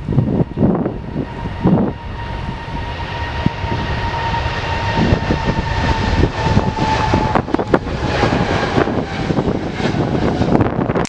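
Jet airliner's engines as it passes: a low rumble with a steady turbine whine that sags slightly in pitch. The sound cuts off suddenly at the end.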